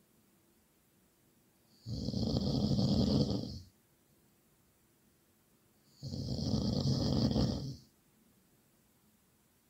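Loud snoring: two long snores of about two seconds each, roughly four seconds apart, with near-silent pauses between them.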